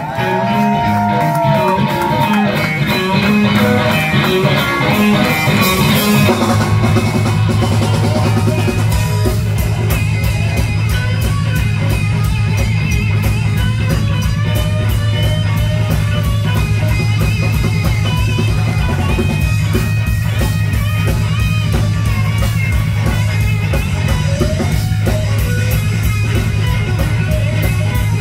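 Live band playing loud electric blues-rock: electric guitars and bass guitar over a drum kit keeping a steady, driving beat, with a held lead-guitar note that bends down about two seconds in.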